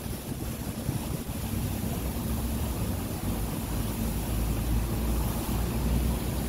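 Steady low rumble of wind buffeting the phone's microphone, over the background hum of city traffic.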